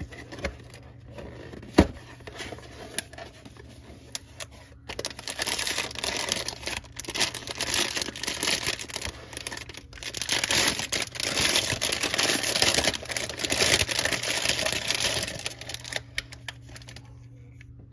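A sharp knock about two seconds in as the cardboard box is handled, then clear plastic packaging bags crinkling and rustling for about ten seconds as the wrapped toys are lifted out.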